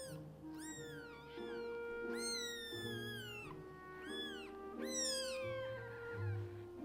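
A young kitten meowing repeatedly, about five high calls that rise and fall in pitch, one longer than the rest near the middle: a hungry kitten calling for its mother. Background music plays underneath.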